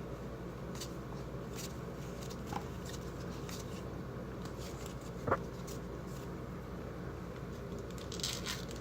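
Soft rustling and light clicks of trading cards and card packs being handled, with one sharper click about five seconds in, over a steady low hum.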